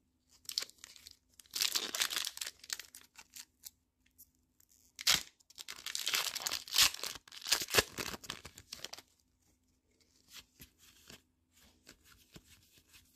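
A Pokémon trading-card booster pack's foil wrapper being torn open and crinkled in repeated crackling bursts, with one sharp snap about five seconds in. Near the end come quieter ticks of the cards being handled.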